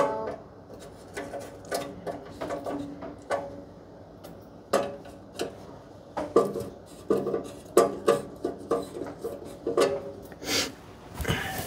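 Irregular metal clanks, taps and scrapes of hand tools and parts being worked loose behind a wood stove, some knocks ringing briefly, with a longer scrape near the end.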